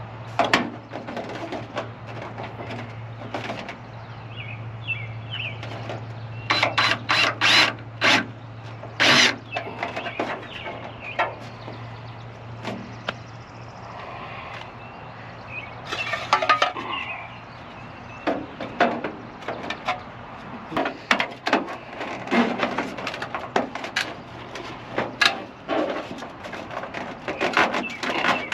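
Irregular knocks and clatter from handling and fastening a gutter downspout and its straps, with quick runs of sharp clanks, over a steady low hum that stops near the end.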